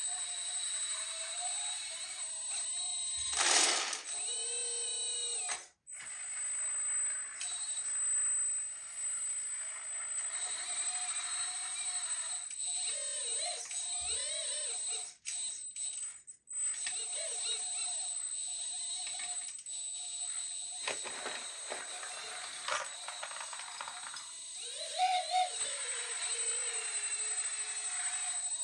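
High electric whine of radio-controlled construction models' small motors and hydraulic pumps, the pitch rising and falling as they work, with a few clicks and several abrupt cuts.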